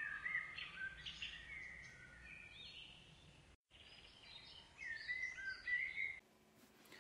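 Songbirds chirping and singing over a faint hiss: many short, quick calls and whistled glides. The sound cuts out completely for a moment about three and a half seconds in, and the singing stops about six seconds in.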